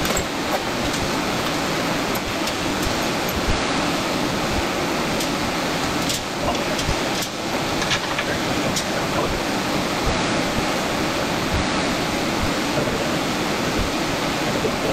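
Steady rushing air noise from a shop fan running, with a few light clicks and knocks of work going on.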